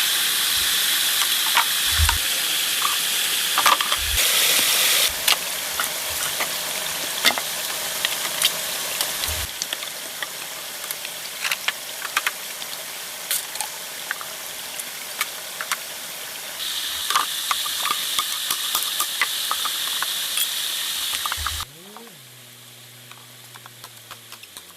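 Rain pattering on a tent: a steady hiss with many scattered drops tapping on the fabric. Near the end the rain noise drops away, leaving a quieter stretch with a faint low tone gliding up and down.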